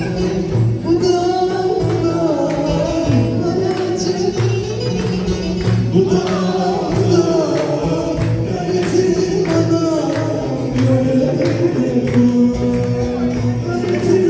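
Live Turkish folk music: a woman sings a melody into a microphone, accompanied by bağlama, darbuka and a jingling frame drum keeping a steady beat.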